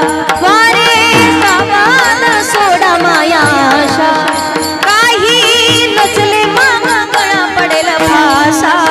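A woman singing a Marathi devotional song, with long ornamented vocal runs over a steady held drone and drum accompaniment.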